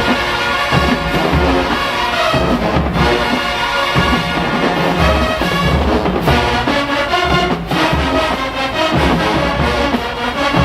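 Show-style marching band playing loudly, its brass section (trombones and trumpets) carrying the tune over the drum line's steady low hits.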